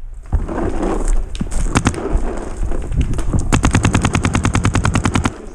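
Paintball marker firing: a few scattered shots early on, then a fast, even string of shots, more than ten a second, lasting nearly two seconds and stopping shortly before the end.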